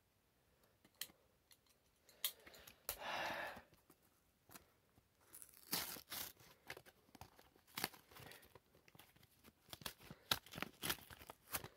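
Faint, intermittent crinkling, crackling and tearing of an action figure's clear plastic blister packaging as it is worked open by hand, with a longer tearing rasp about three seconds in and quicker crackles later on.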